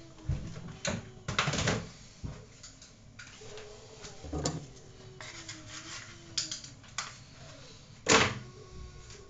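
Irregular clicks, knocks and rustles of handling, with a louder cluster about a second and a half in and a sharp knock about eight seconds in.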